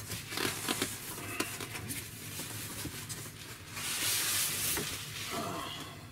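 Cardboard carton and foam packing being handled as a TV is unboxed: scattered rustling, scraping and small knocks, with a longer, louder scrape from just before four seconds in to about five as the packing slides against the box.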